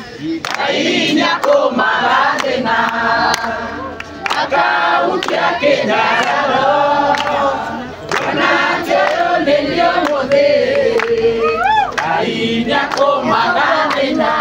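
A crowd of adults and children singing together, with hands clapping along.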